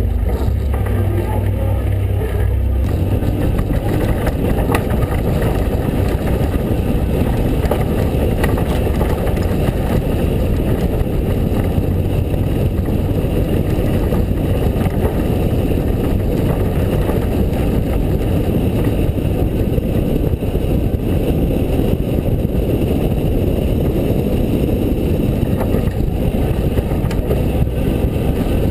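Ford Ranger pre-runner driving on a dirt trail: engine running under a steady rumble of tyres, suspension and chassis rattle over rough ground, with wind on a hood-mounted camera.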